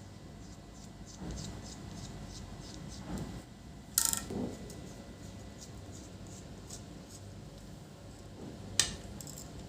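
Small clicks, taps and rubbing of laptop parts and tools being handled during disassembly, with a sharp click about four seconds in and another near the end.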